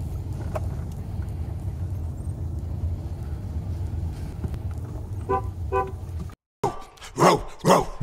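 Steady low rumble of a car's cabin while driving slowly, with two short car-horn toots about five seconds in. Near the end the sound cuts out briefly and a few loud sweeping glides follow.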